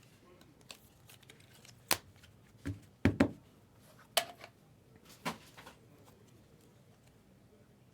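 Trading cards and card packaging handled on a table: a handful of short, sharp clicks and rustles, scattered over the first six seconds.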